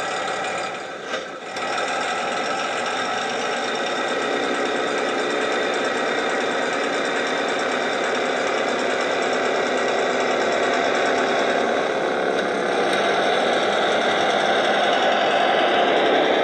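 Recorded MAN Schienenbus (German railbus) diesel engine sound, played by a DCC sound decoder through a small EM2 speaker in a model railcar. The engine runs steadily, dips briefly with a click about a second in, then builds in level and pitch as the model pulls away.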